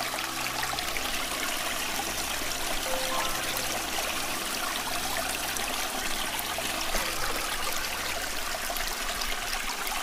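A stream flowing steadily, an even rushing hiss, under soft background music of low held notes.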